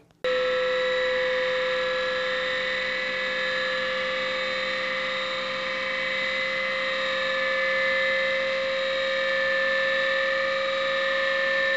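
A small coil-driven pulse motor running steadily, its rotor disc spinning among six drive coils. It makes an even electric hum with a higher whine layered over it, and the pitch creeps slightly upward as it runs.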